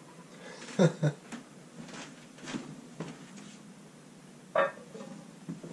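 A few faint light knocks of kitchen handling, with two short bits of a man's voice, about a second in and near the end.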